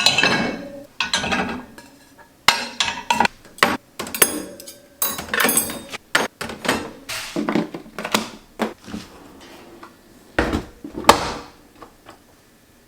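Dishes and cutlery being handled, with irregular clinks, clatters and knocks of crockery and metal, some ringing briefly. A heavier knock comes near the end.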